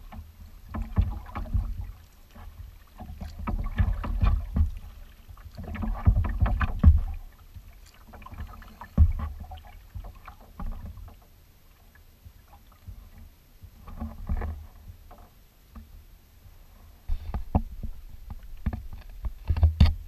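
Kayak paddling: irregular bursts of paddle splashes and water washing against the hull, with low rumbling thumps. The strokes ease off for a few seconds a little past the middle, then pick up again near the end.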